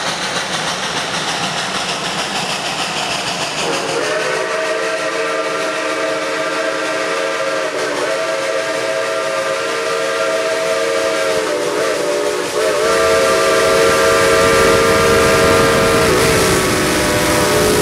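A steady hiss, then about four seconds in a multi-note whistle starts sounding a held chord, with a few brief dips in pitch and level.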